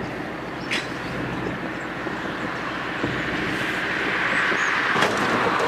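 Truck engine running steadily while reversing slowly. It grows a little louder toward the end, with a short click near the start and a sharp knock about five seconds in.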